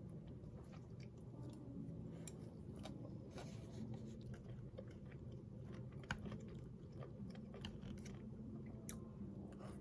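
A person chewing food, with faint irregular crunches and small clicks over a low steady hum.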